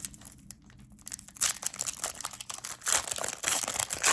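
Foil wrapper of a Disney Lorcana booster pack crinkling as it is handled and torn open. Faint clicks at first, then dense crackling from about a second and a half in.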